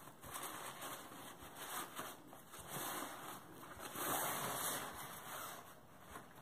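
Nylon carry bag rustling and rubbing as it is worked down off a folded camping chair, in several soft swells, the fullest about four seconds in.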